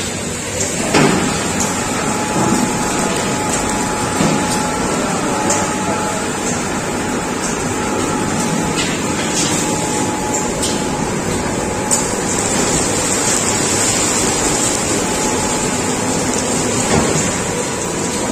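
Steady, noisy din of fryums-making machinery running, with a faint whine through it and a few short knocks and clatters.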